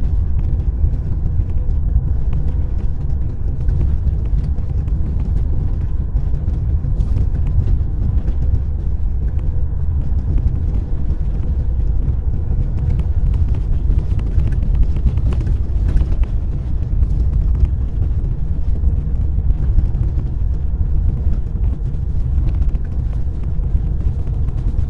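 Car driving on a snowy winter road: a steady low rumble of engine and tyres with a faint constant hum and scattered small ticks.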